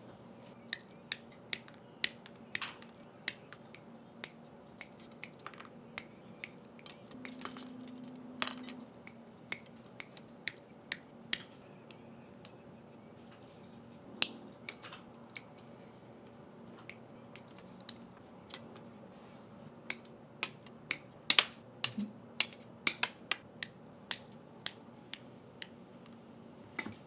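Irregular sharp plastic clicks of Master Grade Hyaku Shiki Ver. 2 Gunpla kit parts being snapped and pressed together, with a denser run of louder clicks near the end.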